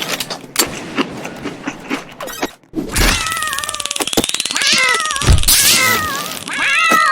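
Cats meowing repeatedly, several bending calls with some overlapping, starting about three seconds in. A few light knocks come before them.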